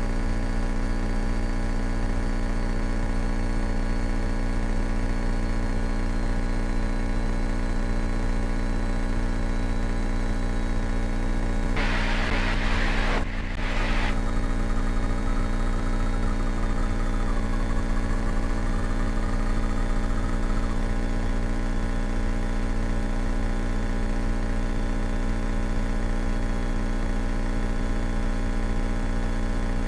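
The Cessna 172K's four-cylinder Lycoming engine and propeller drone steadily in the cockpit, with a brief hissing burst a little under halfway through.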